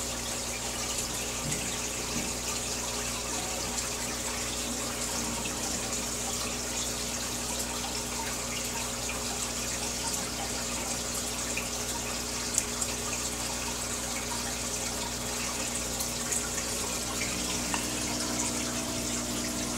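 Aquarium filter and air bubbles churning the water surface, a steady bubbling and splashing with a low steady hum underneath. There are a couple of small clicks about two-thirds of the way through.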